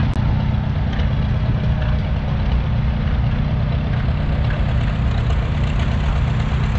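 Several vintage farm tractor engines idling together, a steady low engine sound with no break.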